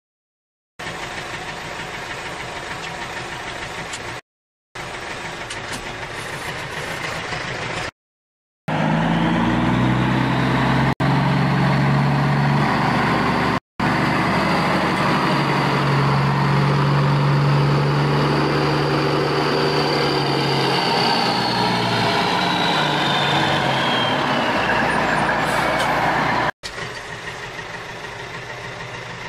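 Vehicle engine running steadily, dubbed over toy vehicles, in several stretches broken by short silent cuts. The loudest, middle stretch has a deep engine note with a high whine that falls away near its end.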